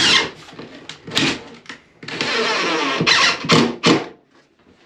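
Cordless drill-driver running steadily for about a second, driving a screw to fix a timber batten overhead, with a sharp knock just before and short bursts of handling noise after.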